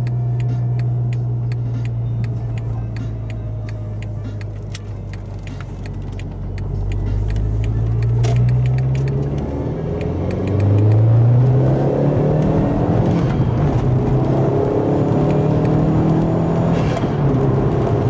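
Seat Leon 1.8 20-valve turbocharged four-cylinder engine running with its freshly rebuilt turbo. The engine note holds steady, sags a little, then climbs twice, about eight and ten seconds in, and keeps running at the higher pitch with rising notes over it.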